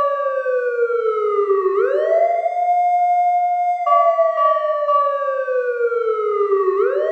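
A siren wailing: a clean tone that slides slowly down in pitch, then sweeps quickly back up and holds, twice.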